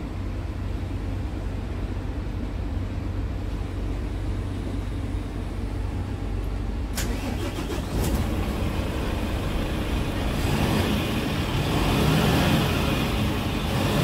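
Volvo FMX 370's D11K straight-six diesel engine idling, heard from inside the cab, with two sharp clicks around the middle. Over the last few seconds the revs rise and the engine runs louder.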